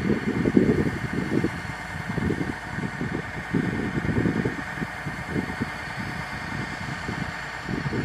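Kubota DC-105X combine harvester's diesel engine running while its unloading auger empties threshed rice into sacks: a low, uneven rumble.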